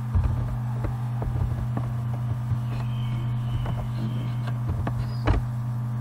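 Computer keyboard keys being typed, a string of short irregular clicks, over a steady low hum.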